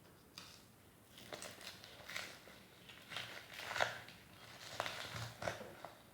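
Hands stuffing vegetable pieces into a whole raw chicken: a string of faint, irregular handling clicks and rustles, loudest about four seconds in.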